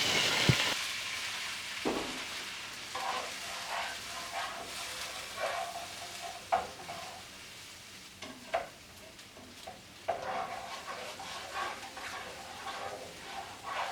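Water sizzling in a hot skillet just after it is poured in to deglaze it, the hiss dying away over the first couple of seconds. Then a utensil stirring and scraping across the pan bottom in short strokes, with a couple of sharper clicks against the pan.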